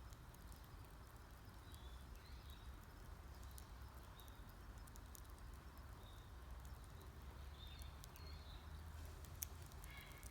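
Wood campfire crackling quietly with scattered small sharp pops, one louder pop near the end. Birds give short high chirps several times.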